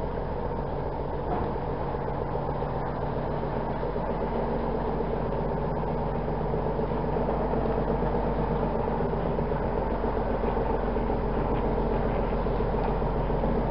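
An engine idling steadily with a low, even pulse, growing a little louder over the second half.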